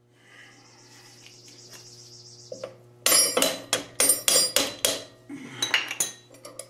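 A hammer striking a wooden block to drive a bearing along a steel 7/8-inch go-kart axle: a quick run of a dozen or so sharp knocks starting about three seconds in, then a few lighter ones. A quieter scratchy sound comes first.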